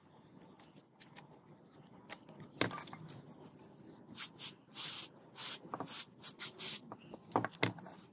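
Flat-blade screwdriver scraping caked rust and grime off the metal gear head of an old angle grinder: short, scratchy strokes with small clicks, coming faster and louder in the second half.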